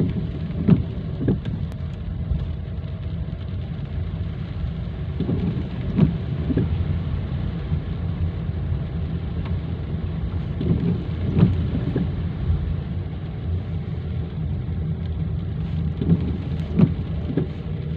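Heavy rain with a steady low rumble, broken by sharp knocks that come in small clusters of two or three about every five seconds.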